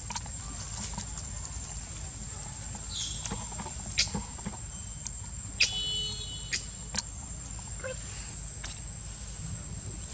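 Outdoor ambience among macaques on dry leaf litter: a steady high thin whine over a low rumble, with several sharp crackling clicks and a brief high squeak a little after the middle.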